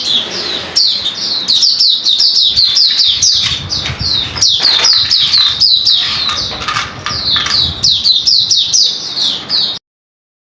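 Small cage birds chirping, a dense stream of short high, downward-sliding chirps, several a second. The chirping cuts off suddenly near the end.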